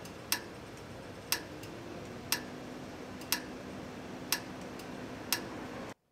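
Pedestrian crossing signal ticking slowly, about one sharp tick a second, the waiting (don't-walk) locator tick of a push-button crossing, over a steady street hum; it cuts off suddenly near the end.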